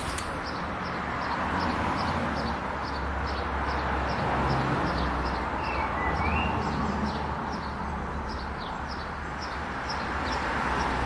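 A small bird chirping over and over outdoors, short high chirps at about three a second, over a steady background hiss. A different two-note call comes about six seconds in.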